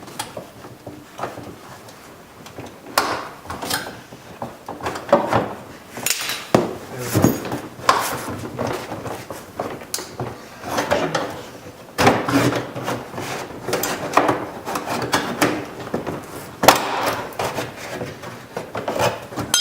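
A plastic interior door panel on a Dodge Caravan being pried loose with a putty knife and door panel clip tool, with irregular clicks, knocks and scraping as the tools work around the retaining clips.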